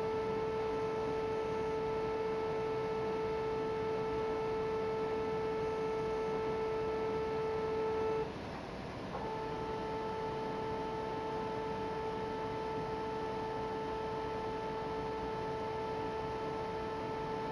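Surface transducer (contact speaker) vibrating plywood with a steady 440 Hz test tone and its overtones as the wood resonates. The tone cuts off about eight seconds in and comes back about a second later, once the transducer sits on a thicker stack of plywood.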